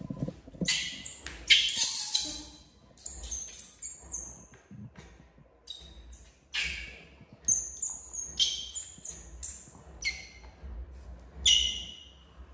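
Baby monkey squealing in short, high, falling cries again and again while a puppy wrestles on top of it, loudest in the first few seconds. A faint scuffling rumble runs underneath.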